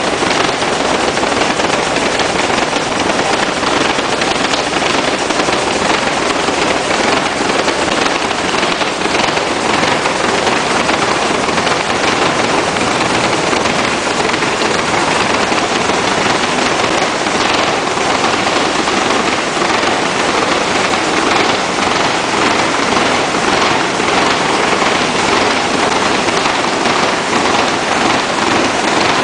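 Hino K13C turbocharged inline-six engine, converted from diesel to spark-ignited CNG, running steadily at a constant speed with a loud, even, rapid exhaust beat.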